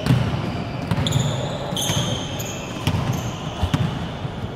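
Basketball sneakers squeaking on a hardwood gym floor, several short squeaks, over the thuds of running feet and a bouncing basketball.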